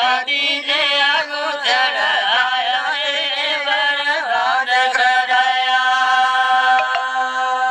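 A man singing a Gojri bait (folk verse) unaccompanied. His melody winds and wavers for about five seconds, then he holds one long steady note.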